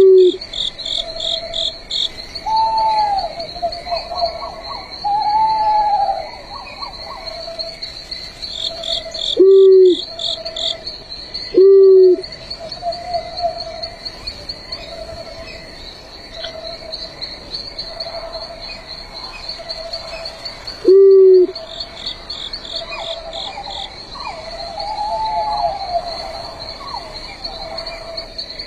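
An owl giving four short, single low hoots, at the very start, about nine and twelve seconds in, and again near twenty-one seconds, over a steady high trilling chorus of crickets and other night insects with a repeating lower pulsing call.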